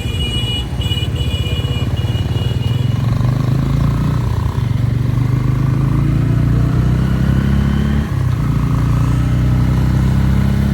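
Motorcycle engine running under way, its pitch climbing steadily, dipping briefly about eight seconds in and then climbing again.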